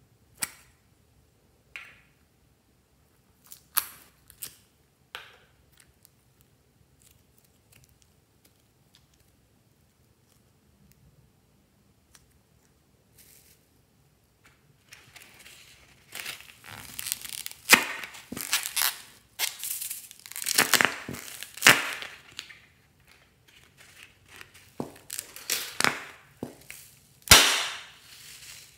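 A few sharp plastic clicks and snaps, then a long dense stretch of crinkling, crackling and tearing from plastic packaging and a slime container being opened and handled, with a loud sharp snap near the end.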